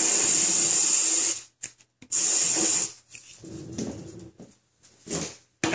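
Aerosol can of Axe body spray hissing in bursts into the fuel hole of a homemade bottle potato gun: one long spray that stops about a second and a half in, then a second short one. This is the chamber being charged with propellant. Softer handling sounds follow.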